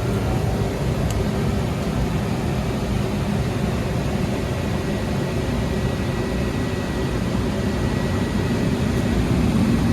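Ruud propane furnace running: a steady low roar of burners and blower, with a faint steady high whine.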